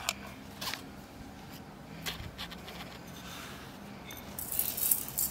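Small handling sounds of bowls and spices on a table: scattered light taps and scrapes, then a short gritty rustle near the end as a bowl of salt is tipped and handled over the mixing bowl.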